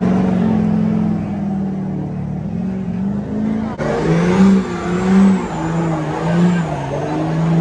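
Pickup truck engines running, with short revs that rise and fall several times in the second half. There is an abrupt change in the sound partway through.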